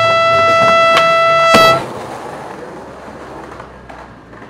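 Soundtrack music ending on a long held brass-like note that cuts off about two seconds in, with two sharp knocks under it; after that only faint, even background noise remains.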